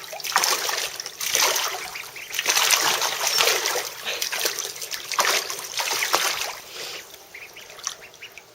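Ducklings splashing, bathing and diving in a kiddy pool, the water splashing in repeated bursts that die down about seven seconds in.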